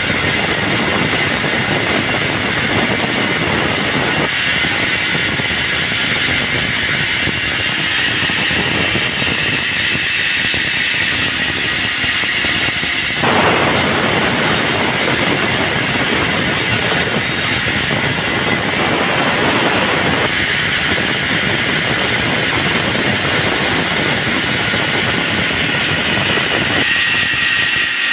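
Band sawmill running and sawing timber, a steady machine noise with a high whine; the sound grows louder and fuller from about halfway through, then eases back a few seconds later.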